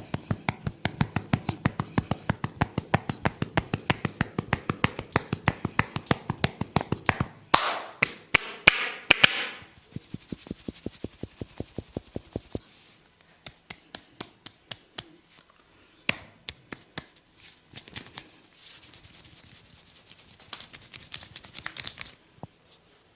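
Hands tapping quickly and evenly on a person's forehead and head during a head massage. Harder, louder strikes mixed with rubbing come about eight seconds in, after which the tapping thins to scattered, quieter taps and light rubbing.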